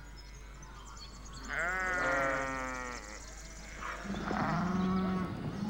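Sheep bleating: one long, wavering bleat about a second and a half in, then a second, lower bleat about four seconds in.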